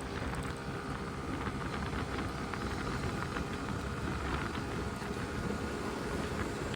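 Kymco KRV Roma GT scooter with its 175 cc water-cooled engine on the move, its running mostly buried under steady wind rush on the microphone and road noise.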